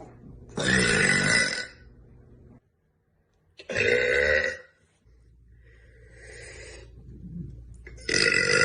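A young woman burping three times, each burp lasting about a second, with short gaps between them.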